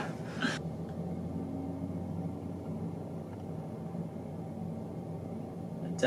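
Room tone with a steady low hum.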